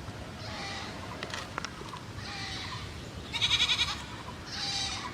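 An animal calling: four short, high-pitched calls about a second apart, the loudest about three and a half seconds in, with a few light clicks between the first two.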